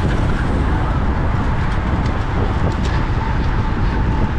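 Wind buffeting a bicycle-mounted action camera's microphone at race-sprint speed: a loud, steady rush, heaviest in the low end, with road and tyre noise beneath it.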